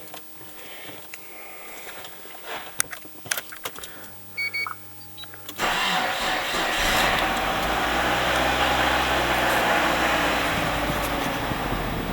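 Clicks and two short electronic beeps, then a Nissan KA24 2.4-litre four-cylinder engine starts about five and a half seconds in and keeps running at idle. This is the engine whose rattle the owner puts down most likely to worn connecting-rod bearings after oil starvation from a bent oil pan.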